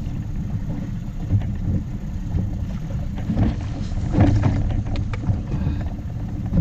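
Steady low rumble of wind and water around a small inflatable boat, with a few knocks and bumps near the middle.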